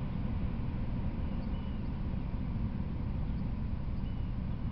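Steady low rumbling background noise with no train passing, broken by two faint short chirps, about a second and a half in and near the end.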